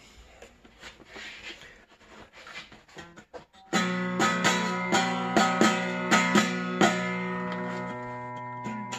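Mountain dulcimer strummed about three times a second from about four seconds in, its drone strings ringing steadily under each strum. The dulcimer has just been fitted with a Teflon bass-guitar nut as its bridge.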